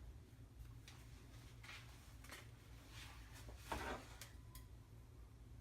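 Quiet kitchen handling sounds from cutting and placing butter: a few faint taps and rustles and one louder short knock about four seconds in, over a low steady hum.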